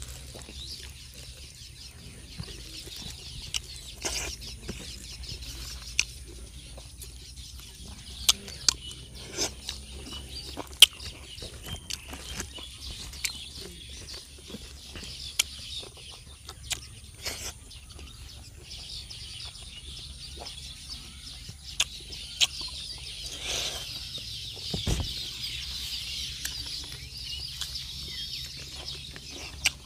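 Close-up eating sounds of liver curry and rice eaten by hand: chewing, lip smacks and sharp mouth clicks at irregular moments. Chickens cluck in the background over a steady high hiss.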